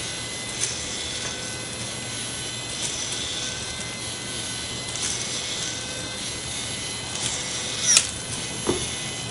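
Small 100 RPM DC gearmotor of a battery-powered robot monkey running steadily, a faint whir of the motor and its plastic gears. Light clicks come about every two seconds as the hooked arms work along the wire, with a sharper click near the end.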